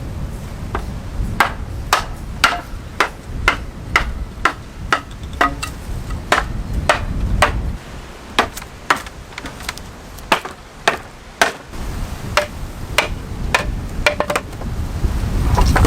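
Repeated sharp chopping or hammering strikes from a hand tool, about two a second, each with a short ring, pausing briefly near the middle and picking up again.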